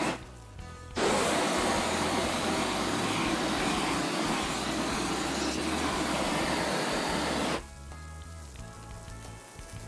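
Handheld gas blowtorch flame blowing steadily, searing a steak on the grill; a short puff at the start, then a continuous blast from about a second in that cuts off suddenly after about six and a half seconds.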